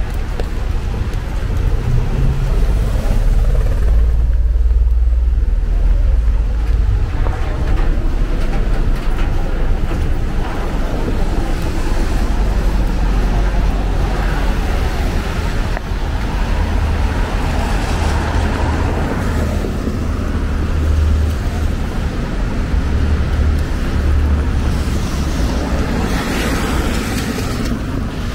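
City street traffic on wet pavement: cars passing with a hiss of tyres over a steady low rumble, swelling and fading as each goes by, loudest near the end.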